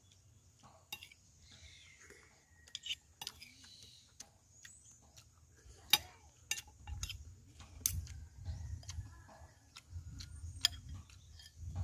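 Spoon and fork clinking and scraping against a plate while eating, a handful of sharp separate clinks at irregular intervals, the sharpest about halfway through. Soft low rumbles come in during the second half.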